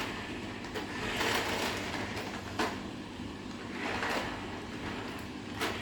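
Remote-control toy concrete mixer truck's small electric drive motor whirring in several short bursts as it is driven back and forth and steered.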